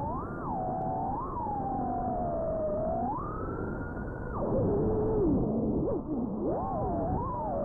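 FPV quadcopter's electric motors whining, the pitch sliding up and down with the throttle. About three seconds in it jumps to a high held whine, then drops suddenly and wavers low and unsteady as the throttle is chopped and blipped.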